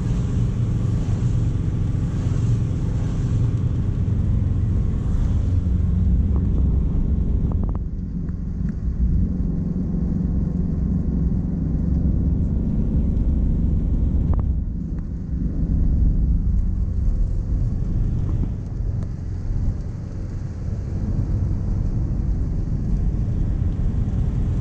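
Nissan Navara D40 pickup driving on a wet road, heard from inside the cab: a steady low drone of engine and tyre noise.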